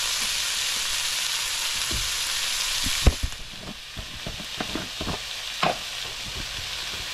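Sliced bell peppers and onions sizzling in oil in a nonstick skillet. About three seconds in the sizzle drops, and a spatula knocks and scrapes against the pan about a dozen times as the vegetables are stirred.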